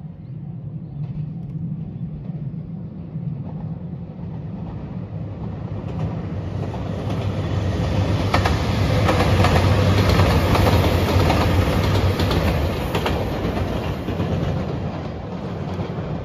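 JR Shikoku 2700 series diesel express train passing: the low hum of its diesel engines builds as it approaches, and is loudest about halfway through, with wheels clicking over the rail joints. It then fades as the train pulls away.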